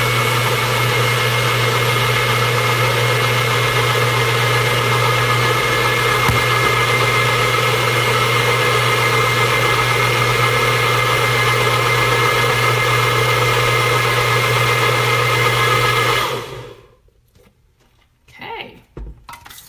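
Magic Bullet personal blender running at a steady pitch with a low hum and a thin high whine, blending a drink. It cuts off about sixteen seconds in and winds down.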